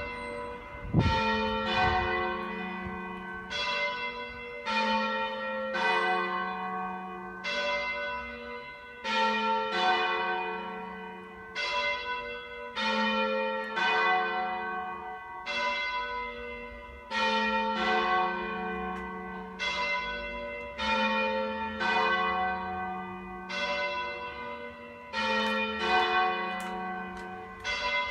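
Church bells ringing, several bells of different pitch struck in turn about once a second, each stroke ringing on into the next. A short low thump sounds about a second in.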